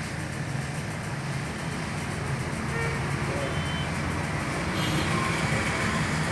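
Steady background road-traffic noise, with a few short faint tones about halfway through.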